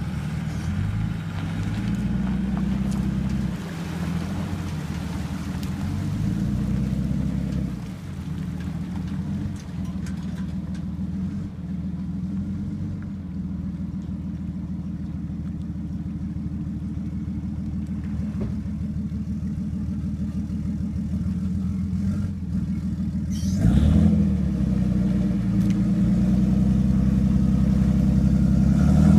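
Patrol boat engine running as the boat maneuvers; its pitch steps up and down with throttle changes. A brief louder rush comes near the end, and the engine stays louder after it.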